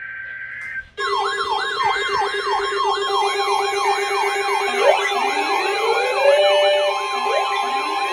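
A short steady two-note tone, then about a second in several electronic sirens start at once and sound together: a fast yelp rising and falling two to three times a second, slower wails sweeping upward every couple of seconds, and steady held tones.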